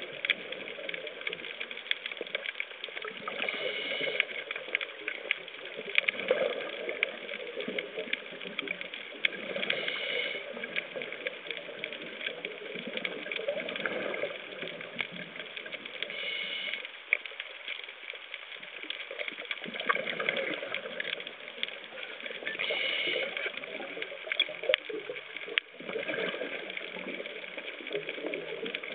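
Underwater sound of a scuba diver breathing through a regulator, a surge of hiss and bubbles about every six seconds, over a steady crackle of small clicks in the water.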